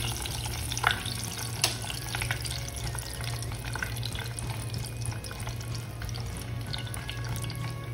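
Hot oil bubbling and crackling in a deep-frying pot as crisp-coated chicken fillets are held above it in a wire strainer, oil dripping back in, with two sharp clicks in the first two seconds. A steady low hum runs underneath.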